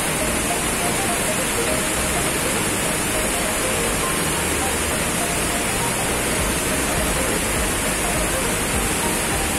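Waterfall on a mountain river: white water pouring down stepped rock ledges in a steady, unbroken rush of noise that stays at the same level throughout.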